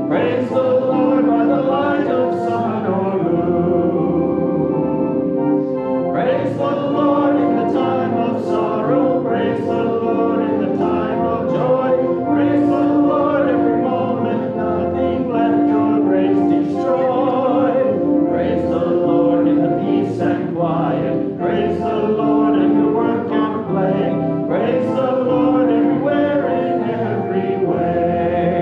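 A church congregation singing a hymn together, with sustained instrumental accompaniment under the voices.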